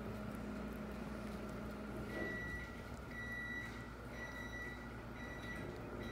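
A high electronic beep repeating about once a second, starting about two seconds in, over a faint steady hum.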